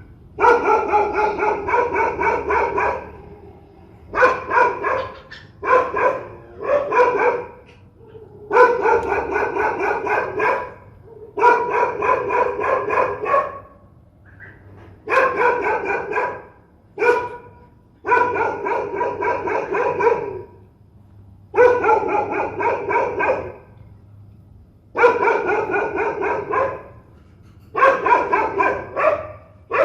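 Fierce dog barking in rapid runs, each run of barks lasting one to three seconds, with brief pauses between them.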